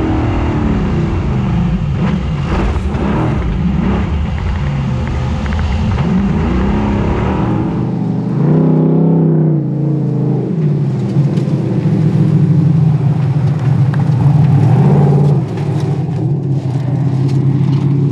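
Beast347 rally buggy's V8 engine heard onboard under hard driving, revving up and down through gear changes. About eight seconds in its pitch rises and holds higher, dipping briefly near the end, with short clicks and rattles over it in the second half.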